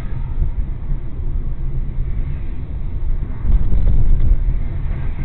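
Low, steady road and engine rumble of a moving car, heard from inside the cabin, swelling a little about three and a half seconds in.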